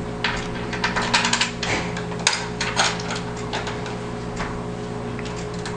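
Quick clicks and light taps of a snow cutter's cutting arm, bolt and nut being handled and fitted onto the blade by hand, busiest in the first three seconds and sparser after.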